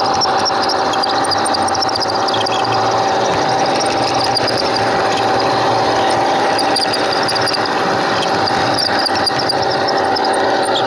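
Garden railway train running along the track: its small electric motor and gearing give a steady whine over a rushing rattle of wheels on rails, heard close up from on board, with scattered short high chirps.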